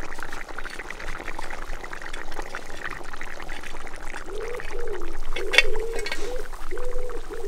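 Thick curry bubbling and popping in a cast-iron Dutch oven over hot coals. From about four seconds in, a low tone in short repeated phrases joins it, and a single sharp click sounds past the middle.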